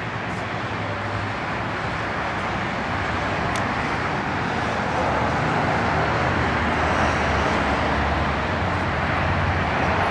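Steady road traffic noise from passing cars, with a low engine hum, swelling gradually louder over the stretch.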